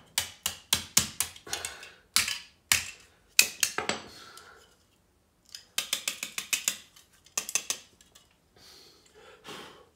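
Hammer striking a hollow 925 sterling silver candle holder in quick runs of sharp metallic knocks, with a pause of about a second midway. The strikes are knocking old candle wax out of it.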